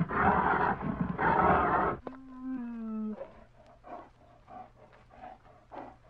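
Bear growling in two harsh, noisy bursts that cut off abruptly about two seconds in. A single drawn-out call with a slightly falling pitch follows for about a second, then faint short sounds.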